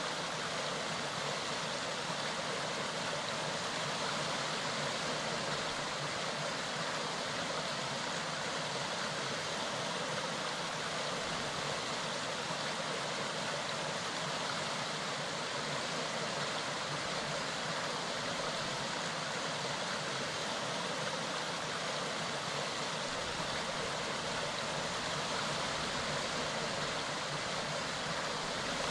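Mountain stream running: a steady, even rush of water.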